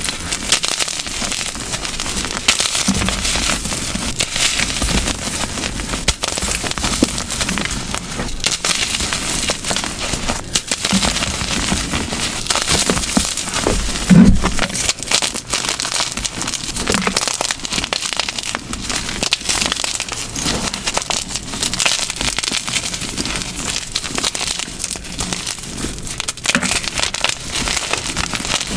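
Glitter-coated blocks of gym chalk crushed by hand: a dense, continuous crunching and crumbling made of many small cracks, with one louder crunch about halfway through.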